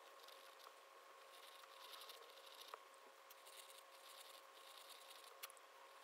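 Faint scratching of a flexible metal nib pen on paper, in short runs of quick strokes, with a few light ticks.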